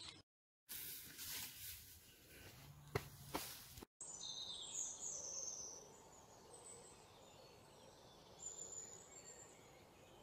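Very quiet outdoor ambience with a few faint high bird chirps about four to six seconds in, and two faint ticks shortly before.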